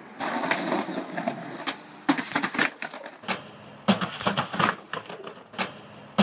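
Skateboard and rider clattering on concrete during a slam: a string of sharp knocks, slaps and scrapes from the board's deck and wheels hitting the ground, loudest in the second half.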